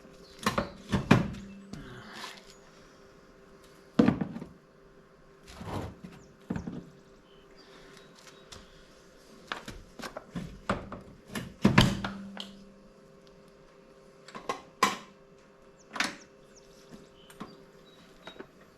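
Irregular clunks and knocks of heavy metal parts bumping together as the Yamaha Warrior 350 engine is worked out of the ATV's frame. The loudest knocks come about a second in, at about four seconds and just before twelve seconds, two of them with a short low ring, over a faint steady hum.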